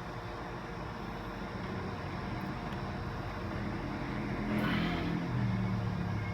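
Motor vehicle engine: a low rumble with a low hum that swells about four seconds in, and a brief hiss near the loudest point.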